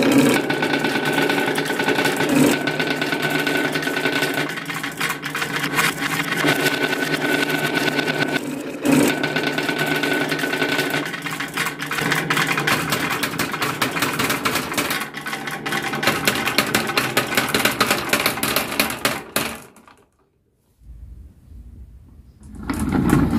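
Many glass marbles rolling and clattering down a wooden marble run, a dense rattle of clicks as they knock against each other and the wooden track. The rattle stops about 19 seconds in, and after a short pause a lower rolling rumble follows from a plastic toy truck being pushed along.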